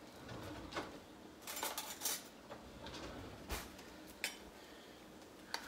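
Scattered clinks and knocks of kitchen dishes and utensils being handled at a countertop, with a quick cluster about two seconds in and a few single knocks after.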